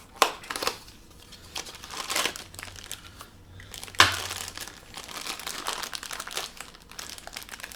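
Packaging crinkling and tearing as a small collectible-toy box is opened and its wrapping pulled apart, with sharp snaps about a quarter second in and again about four seconds in.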